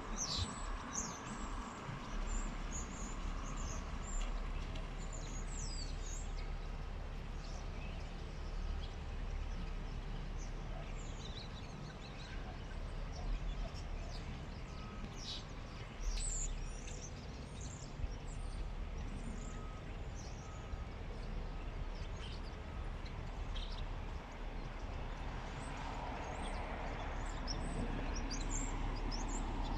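Birds chirping now and then over steady outdoor background noise with a low rumble. The background swells somewhat in the last few seconds.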